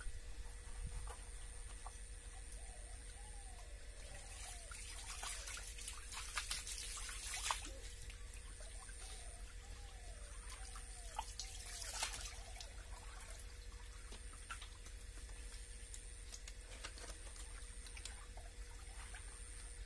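Water splashing and trickling as a man washes himself, in two bouts about a quarter of the way in and just past halfway, over a faint steady hum.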